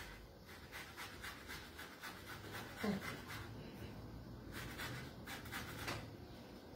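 Lemon peel being grated on a long rasp zester: runs of short, quick scraping strokes, pausing briefly after about three seconds. One brief low sound that falls in pitch stands out about three seconds in.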